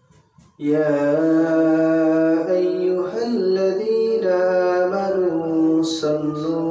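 A man's voice chanting melodically, holding long steady notes with ornamented turns between them. It begins about half a second in, after a brief pause.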